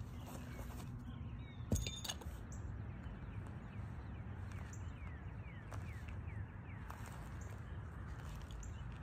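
A thrown heavy-events weight, a metal block on a ring handle, lands with a single sharp thud about two seconds in, followed by a brief metallic rattle. A steady low rumble runs underneath.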